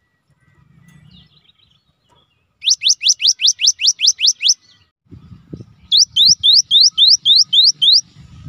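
Cinereous tit (gelatik batu) singing two quick runs of rising whistled notes, about five a second: the first starts a little over two and a half seconds in, the second about a second after it ends. A low rumble sits under the second run.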